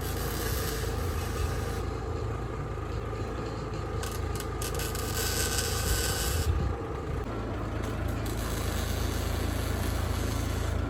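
Welding on the steel frame's purlins: a steady running hum with crackling, hissing stretches over it, the first for the opening two seconds and another from about four to six and a half seconds in.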